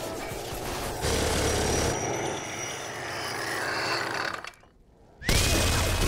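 Film sound effects of a minigun firing: a dense, rapid mechanical rattle mixed with bullet impacts, louder from about a second in. Near the end it cuts out to near silence for under a second, then comes back abruptly with a rising whine that levels into a steady high tone.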